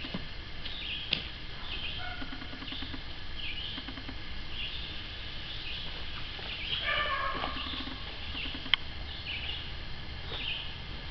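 A songbird calling over and over, short high chirps that slide downward, about one a second. Two sharp clicks stand out, about a second in and near the end.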